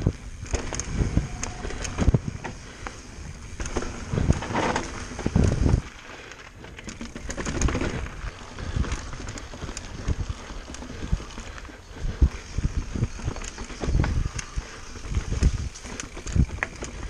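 Mountain bike descending a dirt woodland trail: knobbly tyres rolling over dirt and roots, with the bike rattling and knocking over bumps and low rumbles throughout. The noise eases briefly about six seconds in, then picks up again.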